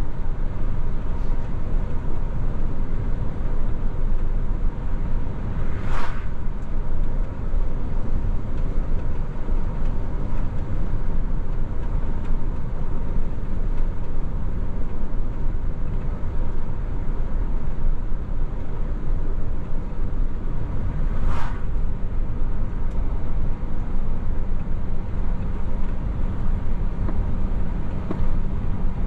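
DAF XF truck driving at road speed: steady engine and road rumble. Two brief sharp clicks stand out, one about six seconds in and another about fifteen seconds later.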